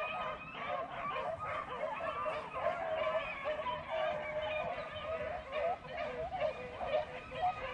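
A pack of beagles baying and yelping together in a continuous chorus of overlapping calls as they run a rabbit on the scent.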